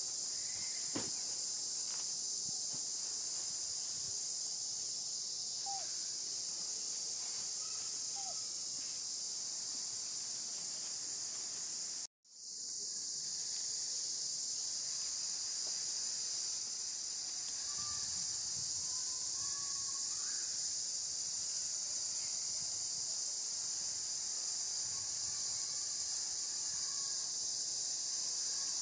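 Steady high-pitched chorus of insects, with a few faint chirps over it. The sound cuts out completely for a moment about twelve seconds in, then returns.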